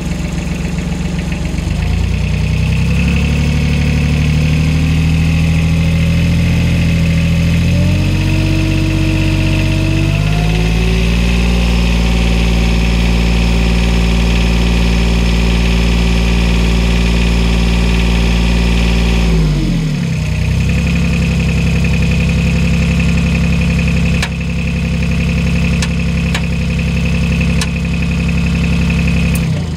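Mini excavator engine revved up in steps over the first few seconds and held at high speed, then dropping back sharply about two-thirds through to run steadily again. The revs are raised to check the charging output of its dynamo after a burnt wiring repair. At high revs the voltage comes up well, showing the dynamo is not faulty.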